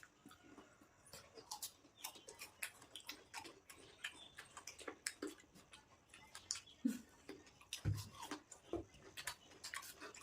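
Faint, close-up chewing of fruit: a dense run of small, irregular wet clicks and smacks from the mouth, with a few brief low throat sounds.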